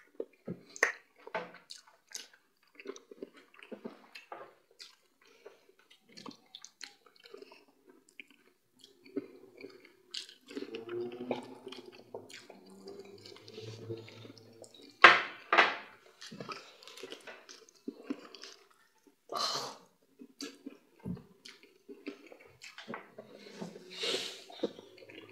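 Close-miked eating by hand of fufu with palm nut soup: wet chewing, lip smacks and the squish of fufu pressed between fingers, in many short clicks. A sip from a glass of water comes about twelve seconds in, and the loudest sound is a sharp smack a few seconds later.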